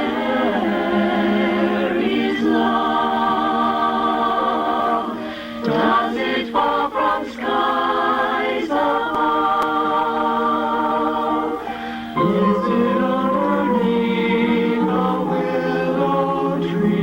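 Choir singing in harmony, holding long chords that change every few seconds, with short breaks about six seconds and twelve seconds in.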